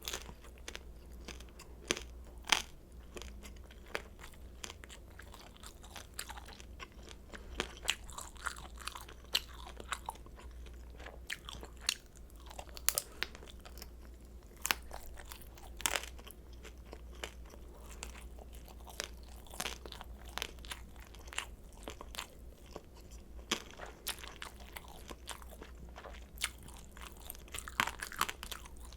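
Close-miked chewing of crispy pan-fried kimchi dumplings (gunmandu), with many sharp, irregular crunches as the fried wrappers are bitten and chewed.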